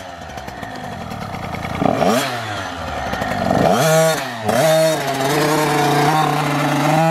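Small youth dirt bike engine revving up and down a few times, then held at a steady pitch as the bike pulls away.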